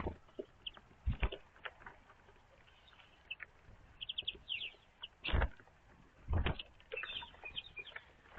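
Small songbirds at a wooden bird feeder: scattered short high chirps, with a few dull knocks from birds landing and moving on the feeder, the loudest about five and six seconds in.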